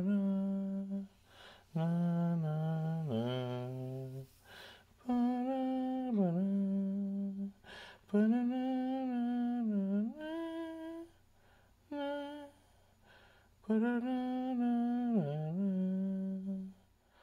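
A man humming a slow melody with no accompaniment, in phrases of two to three seconds with short pauses between. The notes are held and often dip in pitch at their ends.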